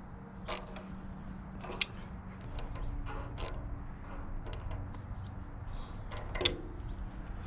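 A few separate sharp metallic clicks and clinks of hand tools on bolts, spaced a second or two apart, the loudest near the end, over a steady low hum.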